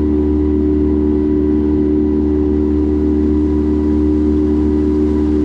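Outboard motor running at a steady cruising speed, driving a wooden lake boat along, with the rush of water and wake beneath its hum.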